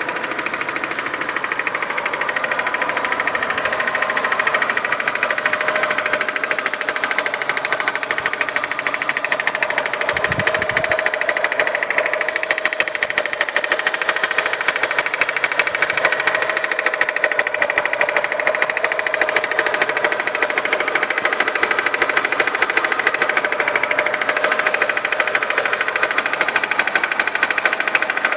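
Mitsubishi Galant's 4G93 inline-four engine running steadily at low revs with a rapid, rhythmic metallic clicking, roughly in time with crankshaft rotation, from around the timing belt and crankshaft pulley. The cause is undiagnosed: valve clearances, timing belt, roller and tensioner, and the accessories have been ruled out.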